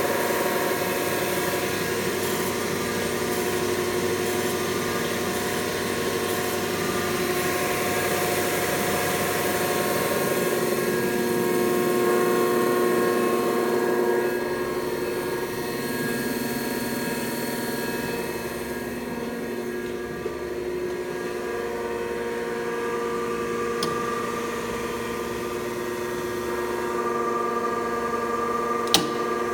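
Thompson 8x24 surface grinder running: spindle motor and grinding wheel turning with the hydraulic table feed, a steady hum made of several held tones under a hiss that eases off about halfway through. The hydraulics are nice and quiet. A single sharp click near the end.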